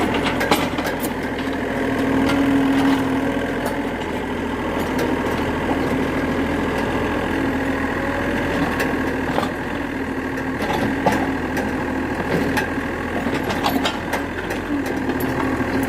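Excavator engine running steadily, with scattered sharp clicks and knocks over it.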